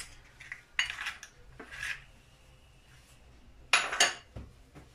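Eggs being cracked open over a mixing bowl: a few short sharp taps and shell cracks against the bowl, with a louder clatter near the end.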